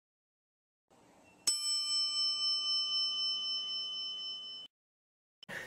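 A single bell struck once, with a bright ring that fades slowly for about three seconds and then cuts off abruptly.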